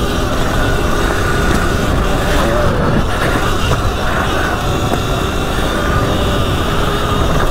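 Sur Ron Light Bee X electric dirt bike ridden wide open over a rough dirt track: a steady rush of wind over the camera microphone and tyre rumble, with a faint steady motor whine above it.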